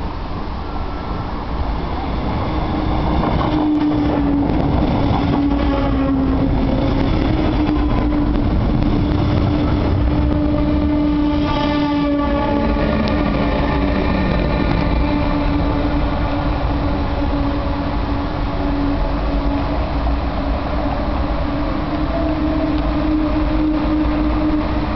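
An S-Bahn double-deck train hauled by a DB Class 182 Taurus electric locomotive pulls into the station: steady rolling rumble with a steady humming tone from the locomotive. It grows louder in the first few seconds and is loudest as the locomotive passes close by about halfway through, with a tone dropping in pitch just after.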